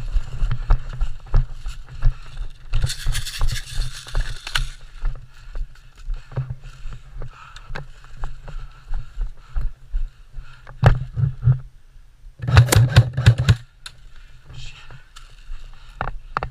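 Rustling and irregular low thumps of a player moving about during an airsoft game, with a hissing rustle about three seconds in and a quick run of sharp cracks about three-quarters of the way through.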